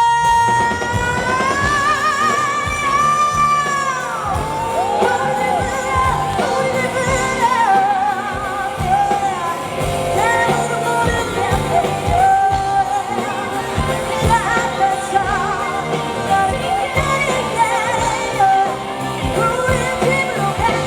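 Live dance-pop performance: a female singer holds a long note with vibrato for about four seconds, then sings runs and ad-libs over a backing track with a steady bass beat.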